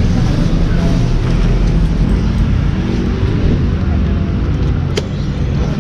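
Steady low rumble of a motor vehicle, with a single sharp click about five seconds in.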